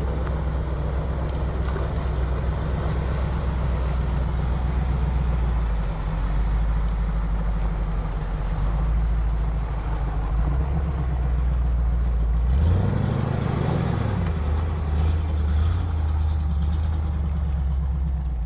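Off-road Jeep engine running under load as it wades through water, with the wake splashing. About two-thirds of the way through, the engine revs up briefly, then settles back.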